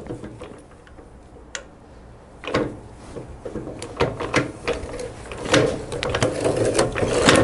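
A hand wrench working the nuts on the kickstarter cover of a Harley-Davidson Big Twin transmission: quiet at first, then from about two and a half seconds in a run of quick metallic clicks and clinks that comes thicker toward the end.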